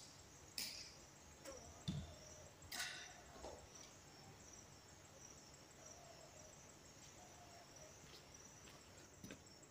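Near silence with insects chirping faintly and steadily. A few light clicks and knocks of handling at the shooting table come in the first three seconds or so.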